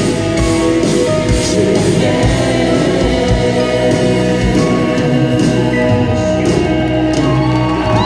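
Live band playing a song: a lead singer over guitar, keyboards and drums, with backing singers. The drum hits stop about halfway through and the band holds long notes.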